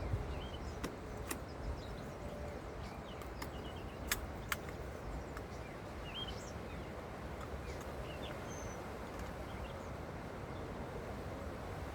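Outdoor background noise with small birds chirping on and off, and a few sharp clicks in the first half, the loudest a close pair about four seconds in.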